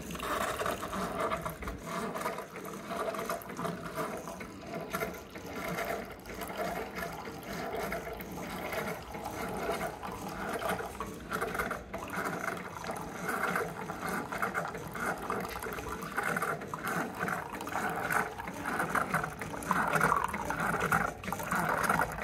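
Keurig single-serve brewer dispensing a thin stream of hot liquid into a mug: a steady trickling and splashing as the cup fills.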